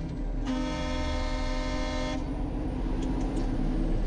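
A truck's air horn sounds once, held for nearly two seconds, over the low steady rumble of passing truck engines.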